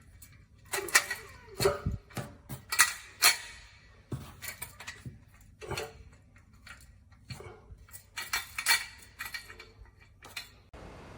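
Irregular clacks and clicks of the hard parts of a washing-machine mover base being handled and knocked together, in short clusters with pauses between.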